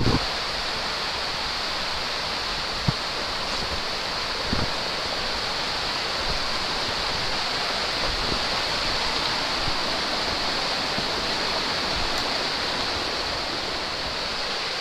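Steady rushing of the Connecticut River's white-water rapids, an even hiss of fast water over rocks. A few short knocks stand out in the first five seconds.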